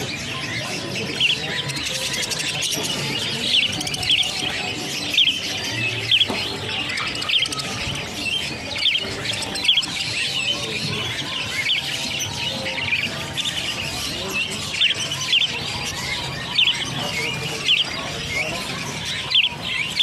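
A flock of caged budgerigars chirping together: a dense, continuous chatter of short, sharp chirps, several a second.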